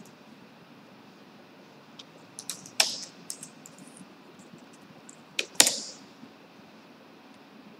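Typing on a computer keyboard: a quick run of keystrokes from about two to three and a half seconds in, then two louder clicks a little past five seconds in.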